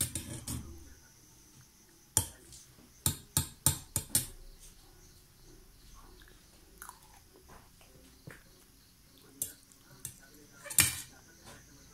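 Metal spoon clinking and scraping against a stainless steel plate: five sharp clinks in quick succession about two seconds in, and two more near the end.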